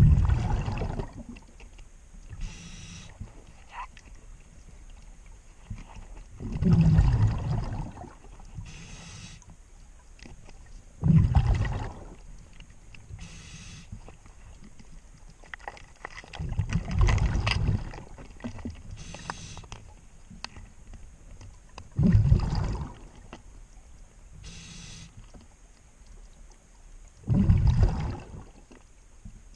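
A scuba diver breathing through a regulator underwater: six loud exhales, roughly every five seconds, each with a fainter, higher inhale hiss in between.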